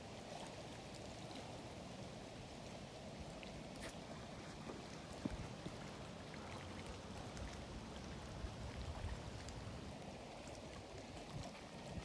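Small wind-driven ripples lapping at a lake's edge: a soft, steady water sound with a low rumble underneath and a few small splashes or clicks.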